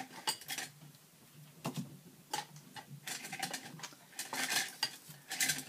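Small metal craft tools clinking and rattling against each other as they are rummaged through, in irregular bursts of clicks.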